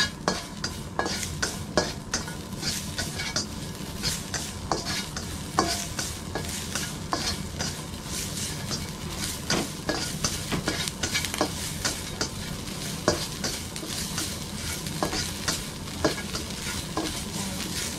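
A spatula scraping and tapping in a non-stick wok as chopped preserved radish (chai po) is stir-fried, with sizzling and frequent short clicks of the spatula against the pan over a steady low hum.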